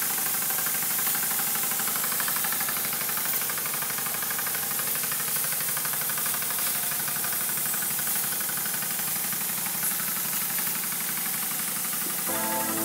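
Small single-cylinder model steam engine running fast on steam from a copper-kettle boiler, a rapid even chuffing over a steady steam hiss from the leaking supply. Music comes in near the end.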